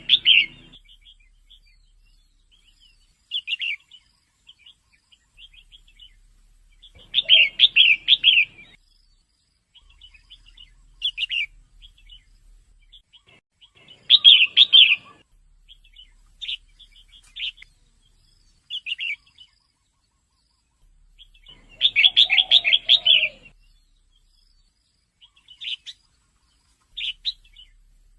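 Female red-whiskered bulbul calling: short chirping phrases every few seconds, with three longer bursts of rapid repeated notes about a quarter, half and three-quarters of the way through.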